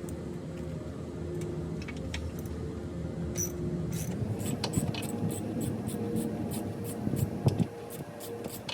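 Hand ratchet clicking in short repeated strokes as a bolt is worked loose, with a louder knock near the end, over a steady low hum.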